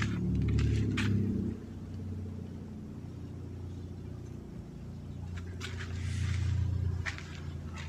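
Low rumble of road traffic passing on a street, swelling in the first second or so and again near the end, with a few footsteps over it.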